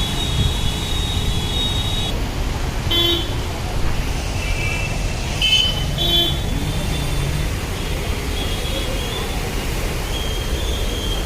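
Road traffic with vehicle horns sounding repeatedly over a steady low rumble: one long honk at the start, then several shorter toots.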